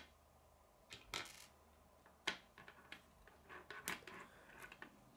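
Small K'nex plastic rods and connectors being handled and pushed together, giving a scatter of faint clicks and light rattles, the loudest a little over two seconds in.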